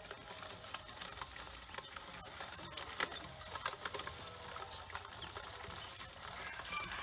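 A bowlful of Pekin ducklings peeping, with many small clicks and scratches of their feet and bills on the metal bowl, and a sharper knock about three seconds in.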